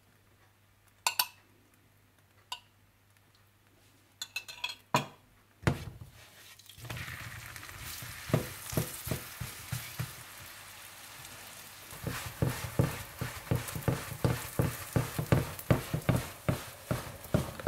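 A few light clinks of utensils, then sizzling from about seven seconds in as paratha fries on a hot griddle. Over the sizzle a spatula knocks and presses on the pan in a repeated rhythm, growing more frequent near the end.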